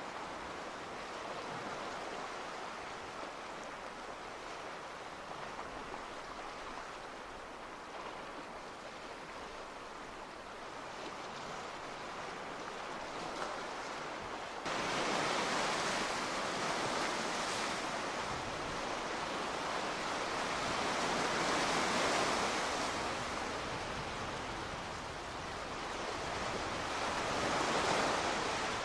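A steady rushing noise, swelling and easing every several seconds, which jumps suddenly louder about halfway through.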